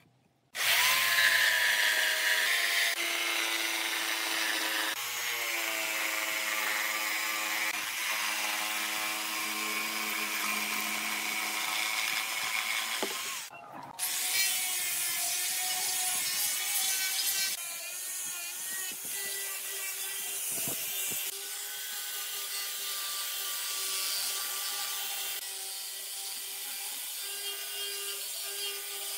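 Power tool working pine wood, its motor pitch shifting under load. It stops briefly about halfway through, then an electric angle grinder with a sanding attachment runs steadily, sanding and shaping the edge of the pine seat.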